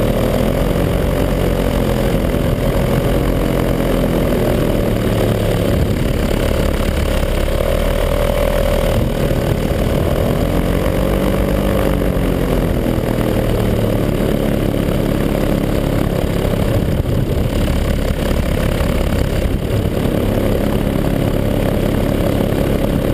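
Paramotor engine and propeller running steadily in flight, heard close from the pilot's harness. Its pitch rises and falls gently a few times, most clearly about ten seconds in.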